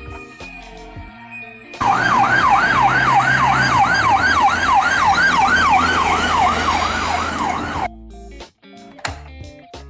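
Electronic ambulance siren sounding a fast rising-and-falling yelp, about three sweeps a second, starting about two seconds in and cutting off suddenly near the end, over quiet background music.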